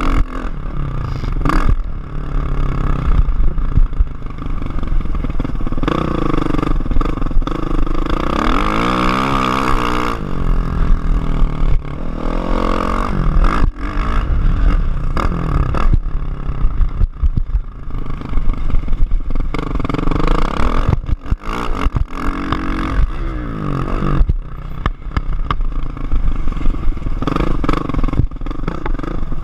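Kawasaki KX450F four-stroke motocross engine, heard close from the rear fender, revving up and down again and again as it is ridden around the track. Wind buffeting and the clatter of bumps run under it.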